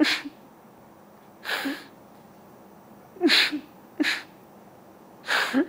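A person crying: about five sharp, noisy sobbing breaths spaced a second or so apart, each with a short catch of voice.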